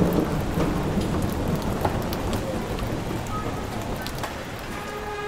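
Rain falling steadily with scattered heavy drops and a low rumble of thunder that eases after the first couple of seconds. Faint music begins to come in near the end.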